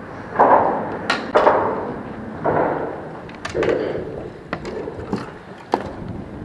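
Small waves slapping against the boat's hull in uneven splashes about once a second, with a few sharp clicks and knocks from the fishing rod and gear being handled.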